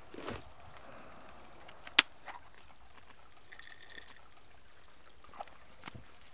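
Faint steady trickle of running water, with scattered small handling clicks and one sharp click about two seconds in.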